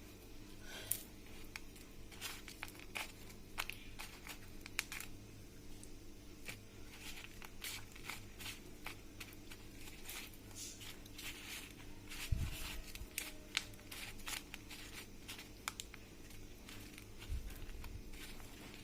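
Crushed cornflake coating crunching and crackling in irregular bursts as chicken pieces are pressed and turned in it, over a steady low hum. A soft low thump sounds about twelve seconds in and again near the end.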